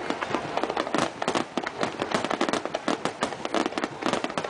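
Aerial fireworks going off in rapid succession: a dense, irregular run of sharp crackling pops and bangs, many each second.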